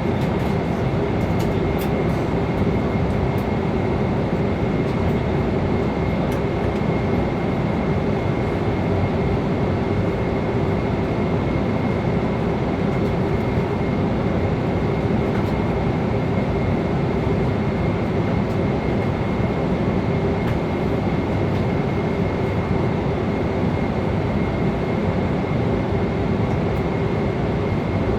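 Airliner cabin noise in flight: a steady rush of engine and airflow noise, with a thin steady whine above the rumble.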